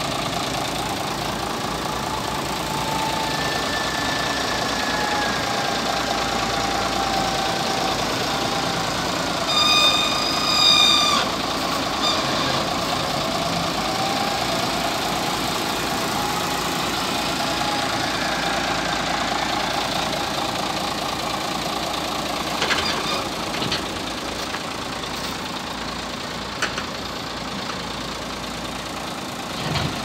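Wheel loader's diesel engine running, its pitch rising and falling slowly as it works, with a horn sounding for about a second and a half about ten seconds in.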